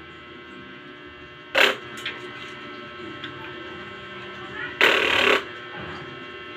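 Steady electrical hum, broken by two short noisy swishes: a brief one about a second and a half in and a longer one, about half a second, near five seconds in.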